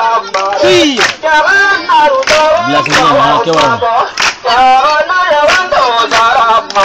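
Voices singing loudly in a wavering, ornamented melody, with sharp percussive hits, such as claps, running through it.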